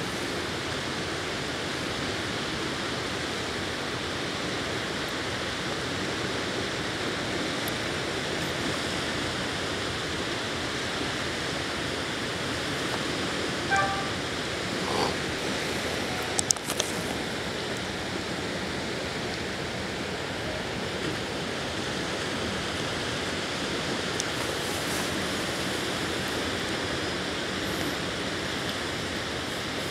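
Steady wash of small river waves lapping at the shore. Just before halfway comes a brief faint call, and shortly after it a few sharp clicks.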